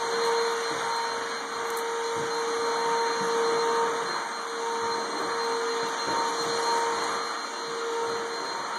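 Vacuum cleaner running steadily: a constant hum over an even rushing noise.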